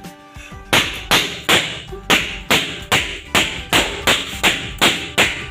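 Music with a sharp, regular beat of about two and a half strikes a second over held tones.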